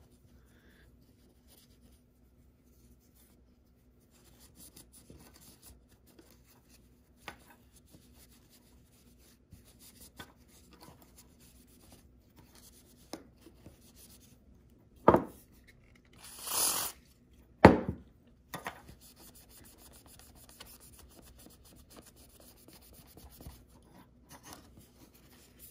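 A cotton pad rubbing and scraping along the metal rails and slider of a dismantled Alps K-series fader, wiping off dirt and crud. The rubbing is faint, with two sharp knocks and a short hiss between them about two thirds of the way in.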